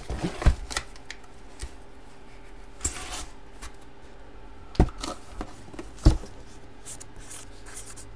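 A cardboard trading-card box being handled on a table: a few sharp knocks and taps as it is moved and set down, with light rustling between them. Near the end, a marker scratching on the box lid.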